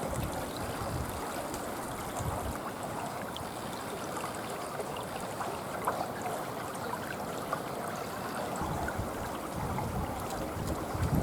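Road and tyre noise from a vehicle driving on a forest road: a steady rushing hiss with scattered small ticks and low rumbles.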